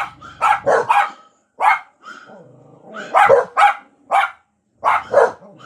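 Blue-nose pup barking repeatedly in quick clusters of short, sharp barks, about ten in all with a short lull partway through, set off by dogs on the TV.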